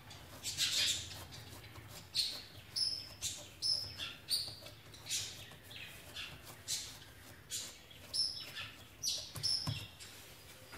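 Thin bangles on a wrist clinking and jingling in short bright bursts, about one or two a second, as hands press and spread pizza dough, with soft pats of the palms on the dough between them.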